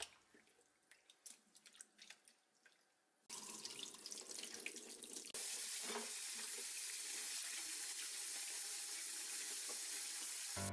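Faint small splashes of sorrel leaves being swished by hand in a glass bowl of water. About three seconds in a kitchen tap starts, and from about five seconds in it runs steadily into the bowl in a stainless steel sink.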